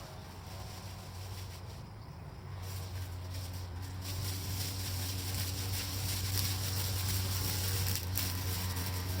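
TB43 two-stroke brushcutter engine running with a steady low drone, getting steadily louder, with a hiss over it that thickens a few seconds in.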